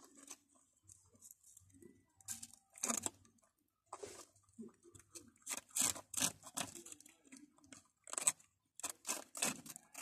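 Rabbits chewing and crunching food: a run of short, crisp, irregular crunches, sparse at first and busier from about two seconds in.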